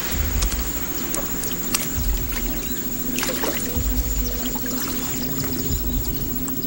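Pool water sloshing and splashing as a man wades in among red-bellied piranhas, with low irregular thuds and scattered small clicks.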